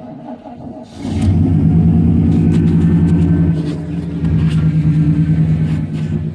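Chevrolet 350 small-block V8, four-bolt main and bored .040 over, in a 1994 GMC truck, running: about a second in it comes up to a steady, higher engine speed and holds there, dipping briefly around the middle.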